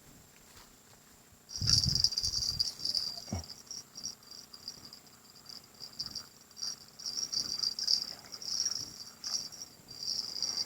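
Insects buzzing in a high, pulsing drone that starts abruptly about a second and a half in and keeps going, with a few low thumps as it begins and a single knock soon after.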